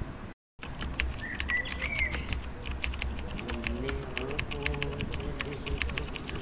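Computer keyboard typing: a fast, irregular stream of keystroke clicks, starting after a brief dropout about half a second in.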